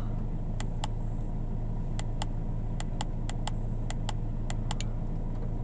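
Mercedes E-Class engine idling steadily, heard from inside the cabin. Over it come a dozen or so sharp clicks, often in pairs, as the buttons of a handheld diagnostic scan tool are pressed to step back out of its menus.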